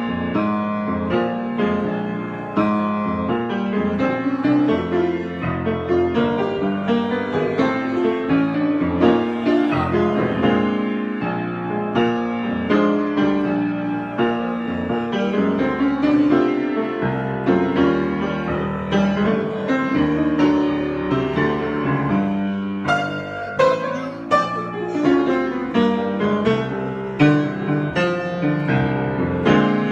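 Solo piano improvisation: a continuous flow of chords and melody, with sharper, more clearly struck notes about two-thirds of the way through.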